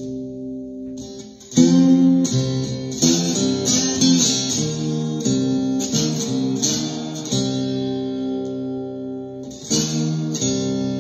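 Ovation Koa acoustic-electric guitar in open C tuning. Picked notes and strummed chords start about a second and a half in, are left to ring for a few seconds, and two more chords are struck near the end.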